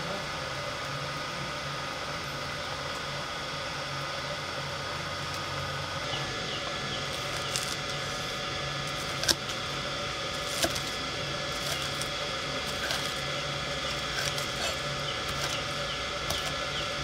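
Knife chopping green onions on a wooden chopping board: irregular sharp knocks roughly once a second, starting about six seconds in, over a steady background drone.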